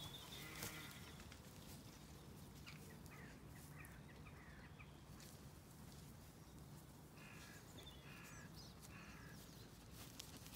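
Faint bird calls over quiet field ambience. There are a few short chirps around three seconds in, then three short calls about a second apart near the end.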